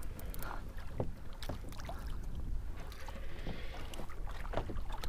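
Small waves lapping and slapping against a fishing kayak's hull, with scattered light knocks and clicks and a low, steady rumble of wind on the microphone.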